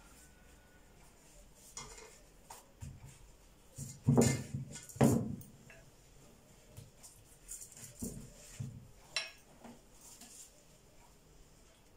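Metal kitchen clatter: a pastry brush clinking and knocking against a small steel bowl of melted ghee and an aluminium baking pan while phyllo layers are buttered. Two louder knocks come about four and five seconds in, with lighter clinks scattered around them.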